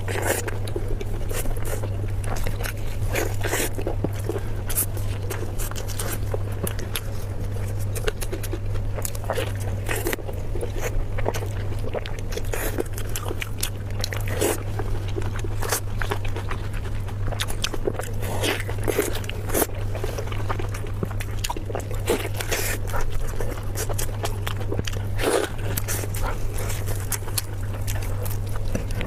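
A person eating close to the microphone: irregular crunchy bites, chewing and mouth clicks with occasional scrapes, over a steady low hum.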